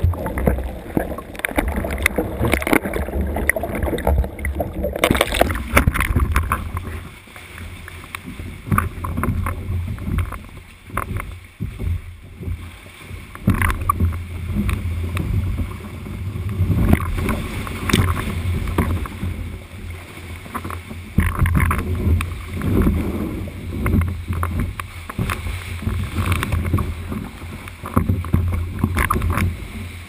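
Sea swell surging and splashing around a kayak in a small sea cave, heard from a camera on the bow, rising and falling in loud irregular surges with a deep rumble underneath. It is muffled for about the first five seconds, then clearer, with sharp splashes.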